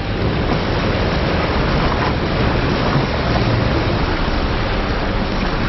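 A small boat under way at trolling speed: a steady rushing noise of its wake water and the wind, over the low hum of its motor.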